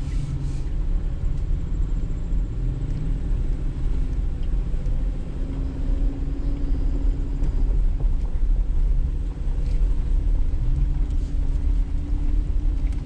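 2019 Jeep Wrangler JL driving slowly along a dirt trail: a steady low rumble of engine and tyres, the engine note swelling a little now and then.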